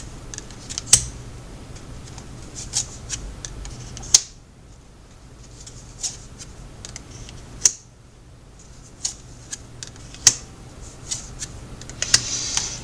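Tarot cards being handled: irregular sharp clicks and snaps of cards flicked and set down, with a quieter pause in the middle and a soft rustle near the end.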